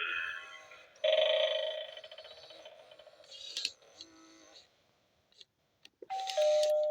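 Gemmy animated eyeball Halloween doorbell playing electronic sounds through its small speaker. A steady ringing tone starts about a second in and fades over a few seconds. After a short gap, its two-note ding-dong chime, higher then lower, starts again near the end.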